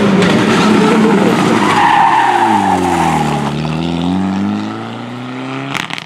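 Mitsubishi Lancer Evolution rally car's turbocharged four-cylinder engine at high revs on the approach. Its note falls as it slows through a tight turn, then climbs again as it accelerates away. Tyres squeal midway through the turn, and there is a sharp crack near the end.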